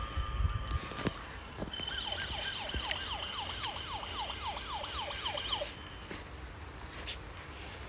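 Electronic toy siren from a battery-powered blue toy helicopter: a fast siren sweeping down in pitch about three times a second over a steady high tone, starting about two seconds in and cutting off abruptly about two seconds before the end.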